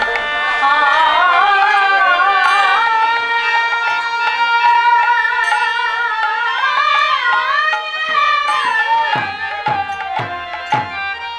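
Devotional kirtan music: a melody with pitch slides and wavering vibrato, joined by a few deep hand-drum strokes whose low tone drops in pitch, about nine seconds in.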